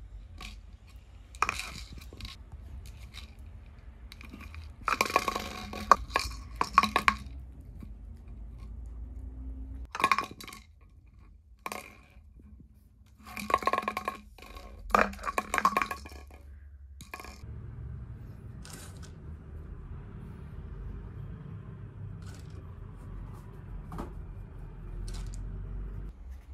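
Dry kibble rattling and clinking inside a clear plastic treat-dispensing bottle as a puppy noses and rolls it across the floor to shake the food out, with knocks of the bottle on the floor. It comes in bursts over the first sixteen seconds or so, then only faint ticks.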